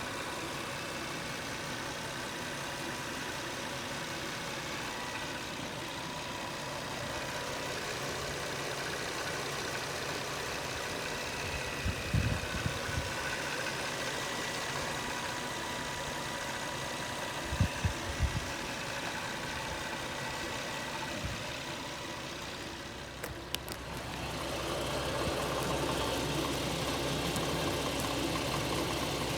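The 3.7-litre V6 of a 2011 Infiniti G37X sedan running steadily at idle. Short bursts of low rattling knock come through about twelve seconds in and again around eighteen seconds: the rattle whose cause the owner is trying to find. Near the end, after a couple of clicks, the running sound grows louder.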